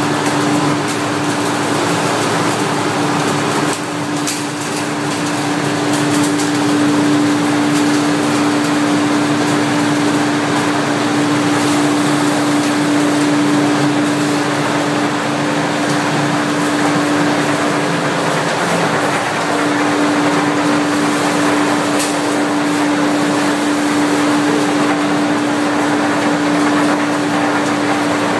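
Olive-processing machinery running steadily, a loud mechanical noise with a constant droning tone.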